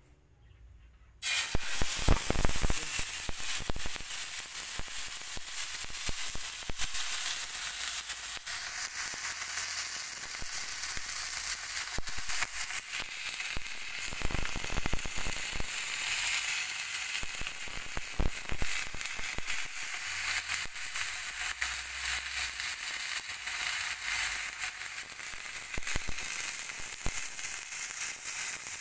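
A thick bone-in beef steak goes into a hot oiled non-stick pan about a second in and starts sizzling at once. The sizzle is loudest just after the meat lands, then carries on as a steady hissing sizzle with fine crackling as the steak sears.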